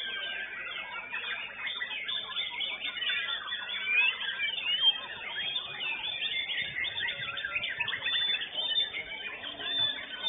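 White-rumped shamas (murai batu) singing, more than one bird at once: a dense, unbroken stream of overlapping whistled phrases, trills and slurred glides.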